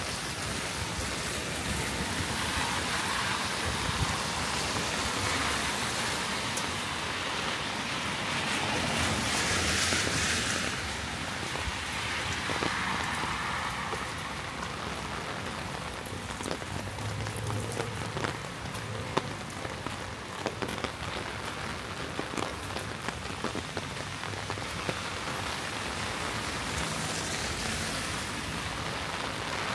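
Steady rain falling, with many drops ticking close by. A louder hiss swells and fades about ten seconds in.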